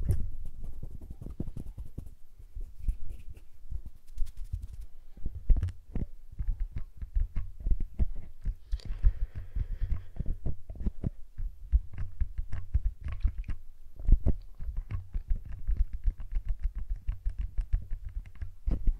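Close-miked ASMR hand sounds: fingers rubbing and fluttering right at a two-capsule microphone, giving a dense run of soft low thuds and clicks as the fingertips touch the capsules, with a brief brushing rub about nine seconds in.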